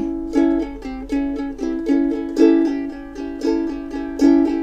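Ukulele strummed in a steady rhythm, chord after chord, as an instrumental break between sung lines.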